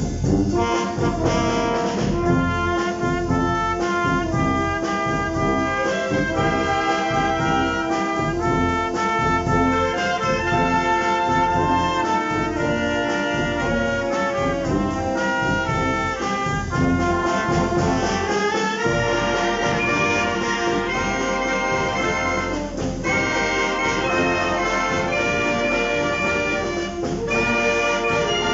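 Concert wind band of clarinets, flute and brass playing Disney film music live, held melody notes over a full accompaniment. About two-thirds of the way through the parts climb in quick rising runs, and a couple of sharp percussion accents hit near the end.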